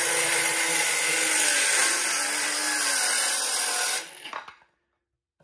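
Milwaukee M12 Fuel brushless 5-3/8-inch cordless circular saw cutting across 3/4-inch plywood, a steady loud saw noise of blade through wood. About four seconds in the cut ends and the saw stops, the blade winding down briefly.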